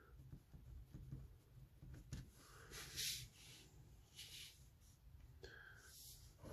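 Faint pen-and-paper sounds: a few soft scratches and rustles of a pen on a paper sheet and the sheet being handled, the clearest about three seconds in.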